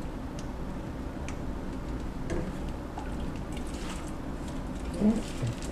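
Hot water dripping and sloshing in a stainless steel pot as a chicken in a plastic shrink bag is moved around and ladled over to shrink the bag, with scattered light clicks of the ladle and bag against the pot.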